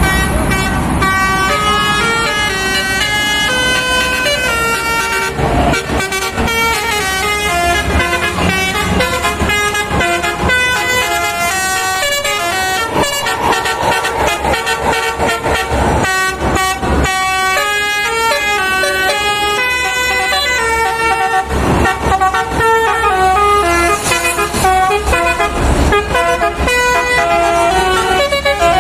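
Indonesian bus 'telolet' multi-tone air horn playing a fast tune of short, jumping notes without a break.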